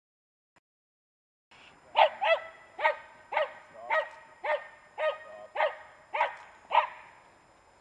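Small terrier barking repeatedly: about ten sharp barks, roughly two a second, starting about two seconds in.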